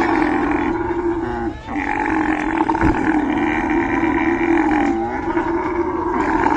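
Camel bellowing in a long, drawn-out groan while being forced into a truck, broken by a short pause about a second and a half in. A dull thump sounds about three seconds in.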